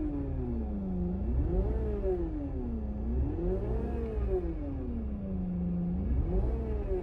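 Suzuki Wagon R engine revved up and eased back down three times, its pitch rising and falling smoothly each time over a steady low rumble.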